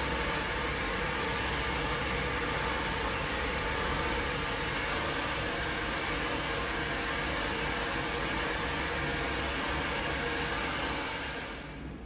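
Hand-held hair dryer running steadily, blowing hot air inside a glass aquarium tank to dry the glass. It dies away about a second before the end as it is switched off.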